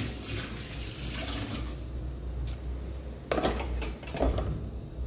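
Kitchen tap water running into a sink while dishes are rinsed, cutting off about two seconds in. Then a few dishes and utensils clink and knock in the sink, the loudest knocks coming near the end.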